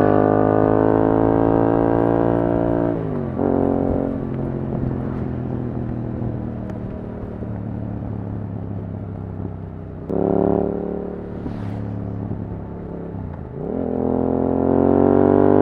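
Yamaha R7's parallel-twin engine through an Akrapovič exhaust. It pulls at high revs, drops off with a quick rev blip about three seconds in, runs lower and steady, gives a short throttle blip about ten seconds in, then dips and climbs again as it accelerates near the end.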